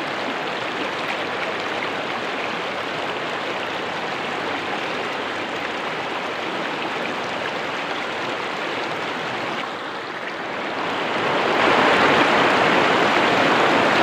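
River water rushing steadily over a shallow stretch, swelling louder for the last few seconds.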